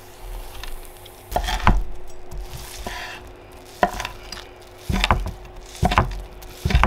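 Kitchen utensils knocking and clattering, about seven sharp knocks spread irregularly and some in quick pairs, over faint sizzling of veggie chicken and bell peppers frying in a pan.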